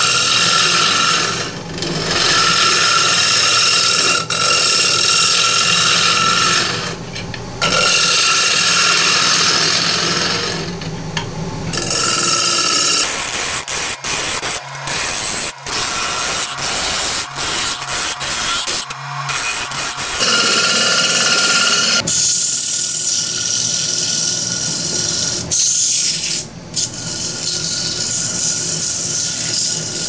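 Turning tool cutting a spinning pine blank on a Nova Comet II DR wood lathe: a loud, steady scraping hiss over the lathe motor's hum, in several stretches that change abruptly.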